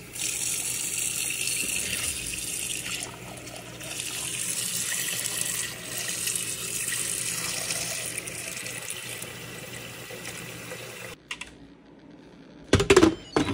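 Tap water running hard into a stainless steel bowl of raw chicken breasts, filling the bowl to rinse the meat, and shutting off about eleven seconds in. A couple of loud knocks follow near the end.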